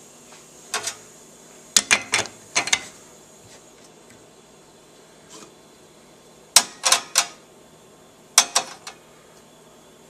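Sharp metal clacks and knocks in short clusters as the portafilter of a Bunn ES-1A espresso machine is fitted and locked into the group head, then a glass is set down on the metal drip tray grate.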